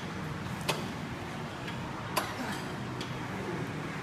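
Gym weights clinking: two sharp metal clinks about a second and a half apart, over a steady low hum of gym background.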